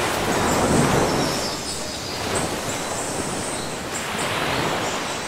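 Gentle surf washing onto a sandy beach, a hiss of water that swells and ebbs in slow surges.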